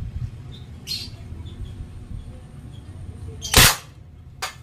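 Homemade PVC toy gun firing a single loud shot about three and a half seconds in, followed about a second later by a short sharp click.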